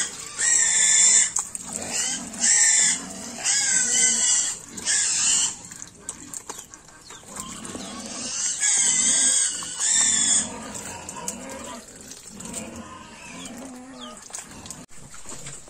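Pigs squealing in a run of loud, high-pitched cries, each half a second to a second long, with lower grunts in between. The squeals stop about ten seconds in and the grunting goes on.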